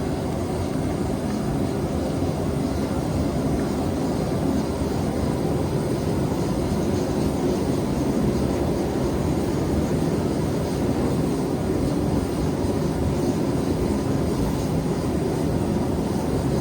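Forge running steadily with a constant low rushing noise, incredibly loud, while a knife blade is heated for annealing.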